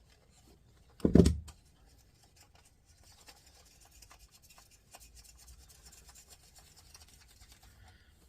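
A single dull knock about a second in, then faint scraping, rubbing and small clicks as a tool and hands work at undoing the nut that holds the tuning dial on the tuner's front panel.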